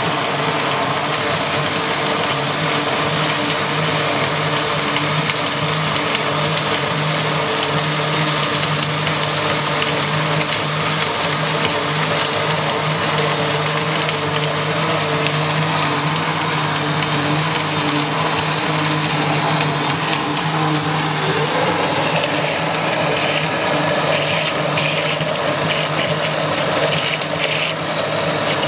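Electric blender running steadily on its highest setting, its motor humming and the jar churning a thick smoothie with whole mice in it, bone, teeth and fur included.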